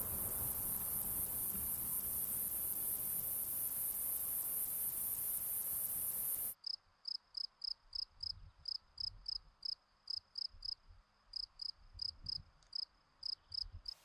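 An insect's continuous, very high-pitched buzzing song, cut off about six and a half seconds in. It is followed by a field cricket singing: clear, pure-toned chirps, about two to three a second.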